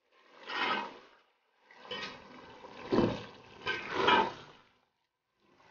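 Minced beef, tomatoes and water bubbling and sizzling in a cooking pot, heard in uneven bursts with a few sharper pops.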